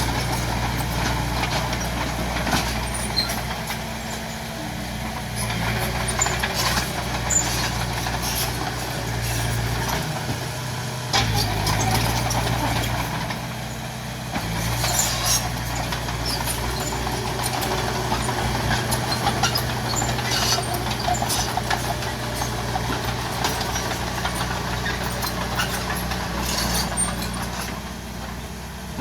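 Bulldozer's diesel engine running steadily under work, with frequent short clanks and rattles throughout. The engine note shifts briefly about ten to twelve seconds in.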